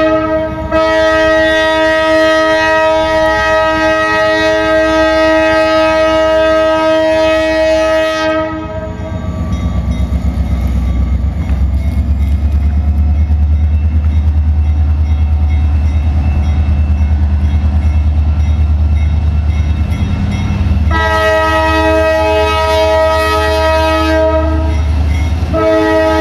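Diesel locomotive's air horn sounding a chord of several notes for about eight seconds, then the deep, pulsing rumble of the engine working as the locomotive pulls its passenger train out. The horn sounds again for about four seconds and once more near the end.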